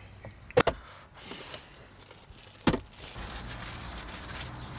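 Two quick sharp clicks, then a single sharp knock about two seconds later, followed by a steady rustling hiss.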